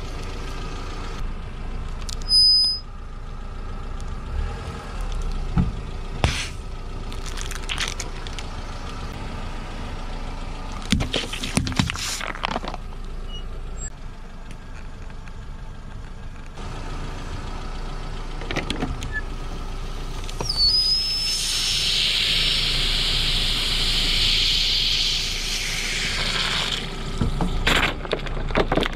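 A car tyre rolling slowly over objects on asphalt with the engine running steadily, as plastic items crack and crunch under the tyre in several short bursts. A steady hiss lasts several seconds about two-thirds of the way through, opening with a brief high squeal.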